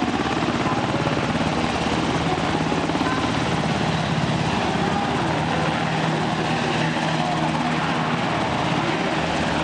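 UH-60J Black Hawk rescue helicopter flying low overhead: loud, steady rapid rotor-blade chop over the noise of its engines.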